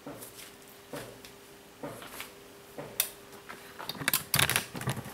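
Irregular sharp clicks, one about every second over the first three seconds, then a quick cluster of louder knocks and rubbing near the end, over a faint steady hum.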